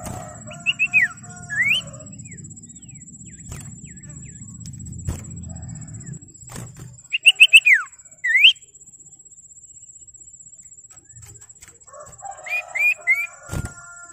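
Common iora (sirtu) calling in three bouts of quick repeated whistled notes. The first two bouts end in a long falling whistle and a short rising one.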